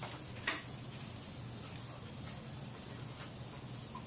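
Faint rubbing and shuffling of things being handled, with one sharp click about half a second in, over a low steady hum.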